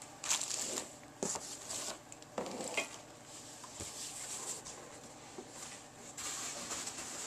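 Cardboard carton and polystyrene foam packing being handled: a series of short scrapes and rustles, then a longer stretch of scraping near the end as a hand grips a foam block.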